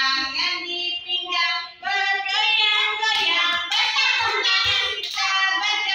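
Young children singing a song together in high voices, with a short break a little under two seconds in.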